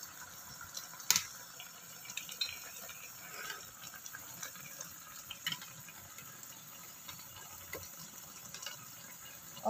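Fish broth simmering in a wok over a gas flame, with faint bubbling and small pops. There is one sharp click about a second in.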